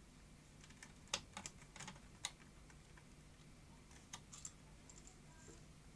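Faint, sharp clicks and taps of a small screwdriver against the screws and metal mounting bracket of a cassette deck's capstan motor, several in the first half and another short cluster about four seconds in.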